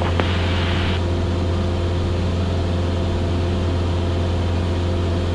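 Cessna 172S's four-cylinder Lycoming engine and propeller droning steadily in cruise, heard inside the cabin. A brief hiss stops about a second in.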